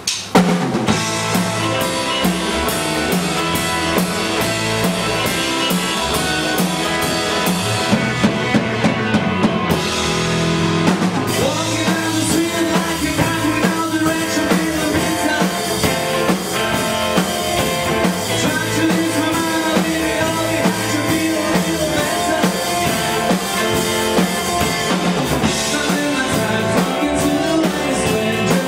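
Live power-pop rock band playing: electric guitars, bass guitar and drum kit, with a short break in the cymbals about ten seconds in before the full band comes back in.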